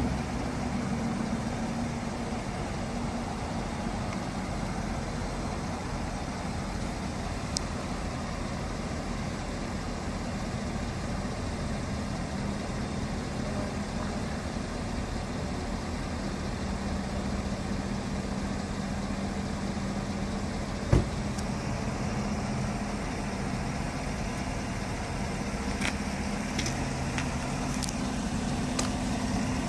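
Chevrolet Silverado pickup's engine idling steadily, with a single knock about two-thirds of the way through.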